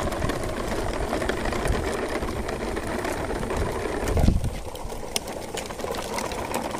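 Plastic toy truck and trailers rolling over rough concrete: a steady rattling rumble of the hard plastic wheels. A thump about four seconds in is followed by quieter rolling.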